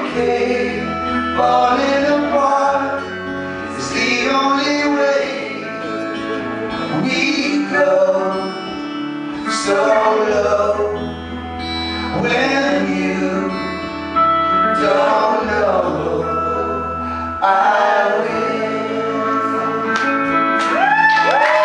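Live band playing a song: several men singing in harmony over acoustic and electric guitars and keyboard, with held low bass notes under the phrases.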